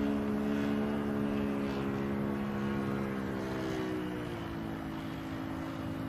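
Small fuel-burning model-aircraft engine and propeller running steadily in flight, powering a Ben Buckle Super Buccaneer radio-controlled plane. Its pitch sinks slowly over the first few seconds, then holds steady.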